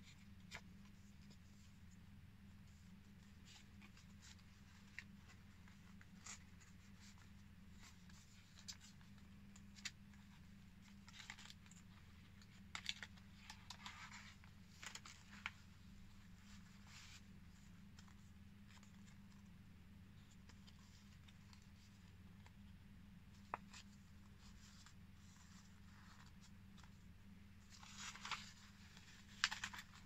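Paper pages and tags of a handmade junk journal being handled and turned: faint, scattered rustles and light taps, busier near the end, over a low steady hum.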